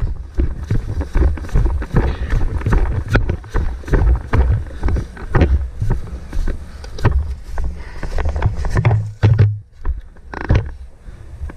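Handling noise from a body-worn camera as an airsoft player moves: a steady low rumble of wind buffeting the microphone, with irregular knocks and rustles from footsteps and gear about once or twice a second.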